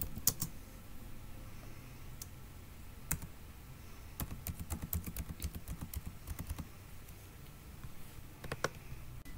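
Computer keyboard typing: scattered single keystrokes, then a quick run of keypresses around the middle as a string of digits is entered, and a last couple of keys near the end.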